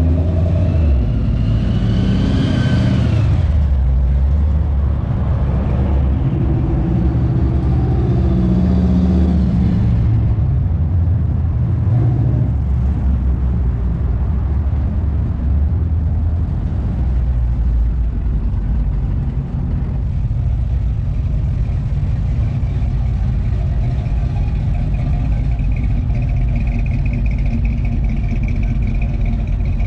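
Classic and muscle car engines on a road cruise, their note rising and falling as they rev in the first ten seconds, then running more steadily.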